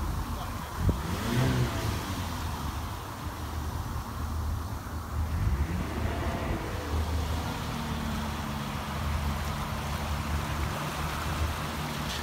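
Engine running, revving up about a second in and again around five seconds in, then settling to a steady hum.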